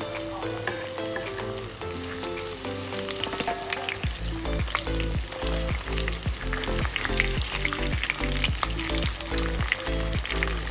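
Shrimp-topped corn fritters sizzling and crackling in hot oil in a pan as they are turned with a spatula. Background music plays under it, and its beat comes in about four seconds in.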